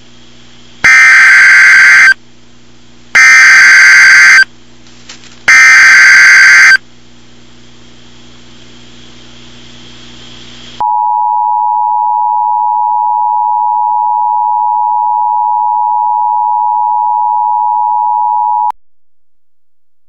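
Emergency Alert System header: three loud screeching bursts of digital SAME data, about a second each, over a faint low hum, followed by the EAS two-tone attention signal, held steady for about eight seconds and cutting off abruptly.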